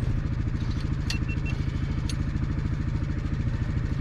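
A vehicle engine idling steadily with an even, rapid low pulse, and a couple of faint clicks about one and two seconds in.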